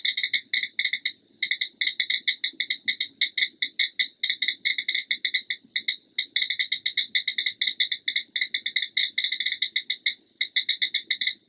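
Crickets chirping: short, evenly spaced high chirps, several a second, with brief pauses now and then.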